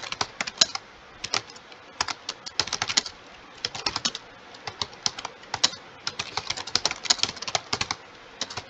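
Computer keyboard being typed on fast in quick irregular runs of keystrokes, with short pauses between runs; the clicks stop shortly before the end.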